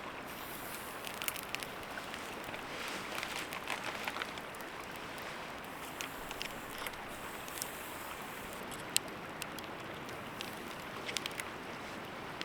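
Wood campfire crackling, with scattered sharp pops at irregular intervals over a steady rushing noise.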